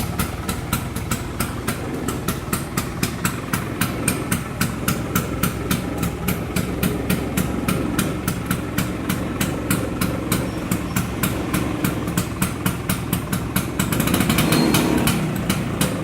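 1965 Vespa Super 150's single-cylinder two-stroke engine idling just after a first-kick start, with an even beat of about four to five pulses a second. It is revved briefly about fourteen seconds in, then settles back to idle.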